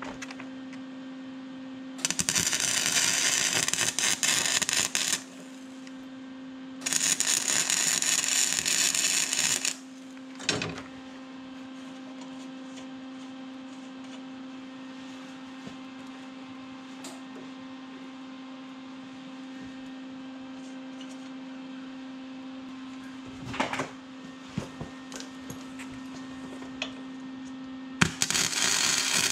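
Metalworking noise: a power tool run in loud bursts of about three seconds, twice early on and again near the end, over a steady electrical hum, with a few clanks and knocks between.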